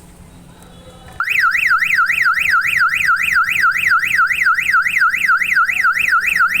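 Car alarm siren on a Maruti Suzuki Alto K10 sounding, part of its central locking and security system: a loud electronic wail sweeping up and down about four times a second. It starts suddenly about a second in.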